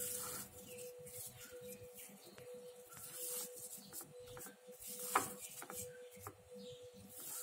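Hand squeezing and kneading crumbly keto cookie-dough mixture in a plate: repeated soft, gritty rustling and crumbling, with one sharp tap about five seconds in. A faint steady hum runs underneath.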